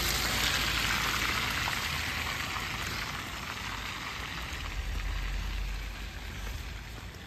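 A car driving past on a slushy, snow-covered road, its tyres hissing in the wet slush, fading as it drives away.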